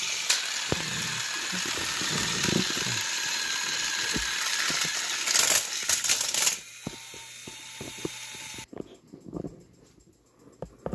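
Battery-powered Thomas & Friends toy engines running on plastic track: a steady whirring hiss with rattling clicks, which cuts off suddenly about six and a half seconds in, followed by a few quieter clacks.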